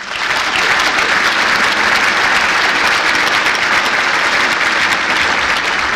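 Audience applauding: a dense, steady clapping that starts all at once.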